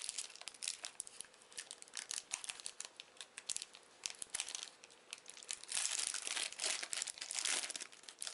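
Foil trading-card booster pack being torn open and handled, a run of crinkling and crackling that is heaviest in the last third.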